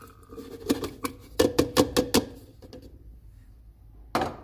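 A quick run of about six sharp hard-plastic knocks, some four a second, as a plastic bowl knocks against a tall plastic blender beaker while tomato pulp is tipped into it; one more, louder knock near the end.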